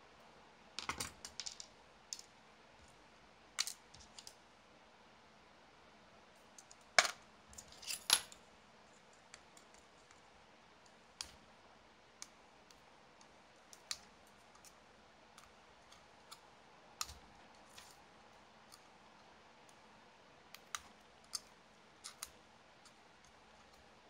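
Scattered light clicks and taps of small screwdrivers and metal parts being handled and set down while a 1/28-scale RC car chassis plate is taken apart by hand, with a sharper pair of clacks about a third of the way in.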